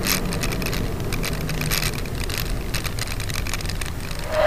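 Car road noise as picked up by a dash camera: a steady low rumble of engine and tyres with scattered clicks and knocks.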